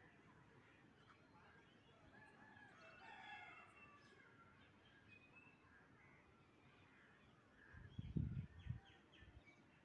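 Faint bird calls, short chirps and calls scattered through, busiest in the first few seconds. A brief low rumble about eight seconds in is the loudest sound.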